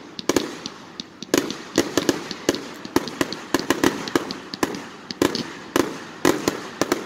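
Fireworks launching and bursting overhead: a quick, uneven string of sharp bangs, some coming two or three close together.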